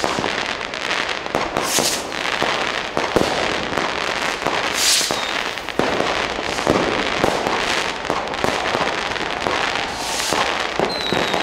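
New Year's Eve fireworks and firecrackers going off all around without pause: a dense crackle of many small bangs, louder single bangs, and the hiss of rockets going up.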